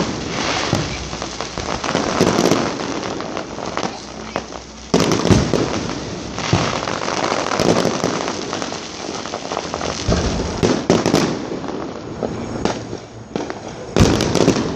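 Fireworks display: continuous crackling with repeated sharp bangs, the heaviest about 5 s, 10 s and 14 s in.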